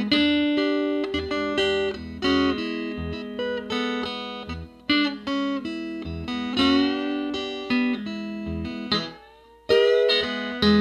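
Six-string box-bodied resonator guitar played through a small combo amp: picked blues licks with notes slid up and down in pitch. Near the end the notes die away almost to nothing, then a loud chord is struck.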